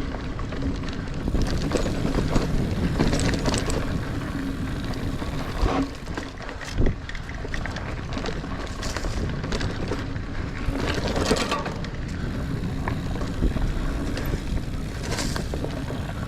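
Niner Air 9 RDO 29er mountain bike riding along dirt singletrack: a steady rumble of tyres and bike rattle, with scattered clicks and knocks over bumps and a sharper knock about seven seconds in.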